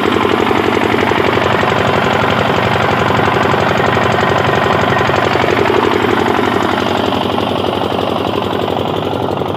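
Small single-cylinder diesel engine running steadily, with a fast, even knocking beat.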